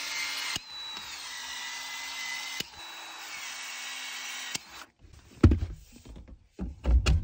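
Cordless PEX-A expansion tool running: its motor whines in three runs over about four and a half seconds, each run dipping a little in pitch as the head expands the end of the PEX pipe. Then come a few loud knocks as the tool and pipe are handled.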